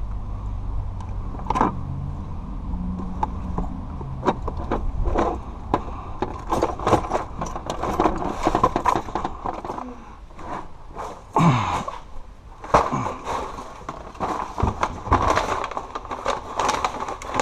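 Small objects being handled and rummaged through: clicks, knocks, rustles and scrapes of jewelry and boxed items being picked over and moved about. A low steady hum sits under the first few seconds and fades. Two short downward-sliding scrapes come about two-thirds of the way in.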